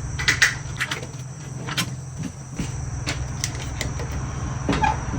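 Scattered short clicks and taps of hand tools being handled, a flathead screwdriver fetched and set to the engine's power valve lever, over a steady low hum.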